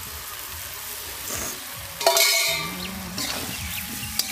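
Fried cauliflower and potato pieces going into hot spiced oil in a kadai, sizzling as they are stirred. A loud burst of sizzling comes about two seconds in and slowly dies down.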